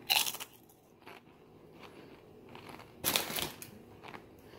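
Crunching of a Doritos tortilla chip being bitten and chewed: two loud crunches, one at the start and one about three seconds in, with quieter crunching between.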